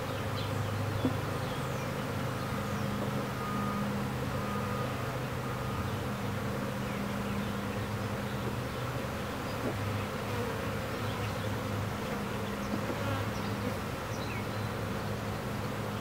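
A swarm of honey bees buzzing around a top bar hive into which they have just been dumped, a steady, continuous hum from many bees.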